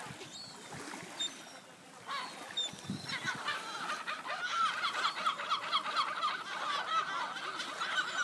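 A flock of gulls calling. A few scattered calls at first, then from about three seconds in a dense chorus of rapid, overlapping calls.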